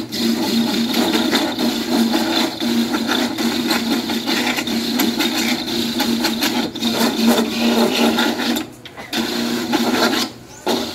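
Electric coconut grater running, its spinning toothed head rasping coconut meat from a half shell pressed against it: a steady motor hum under a loud scraping grind. The grinding breaks off briefly twice near the end.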